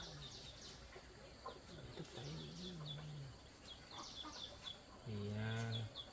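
Birds chirping, many short high chirps repeated throughout, with two lower drawn-out calls; the louder one comes about five seconds in and lasts under a second.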